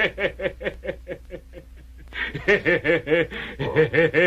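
A man laughing in a rapid, rhythmic chuckle of about seven pulses a second, in two runs with a short break near the middle; the second run is louder.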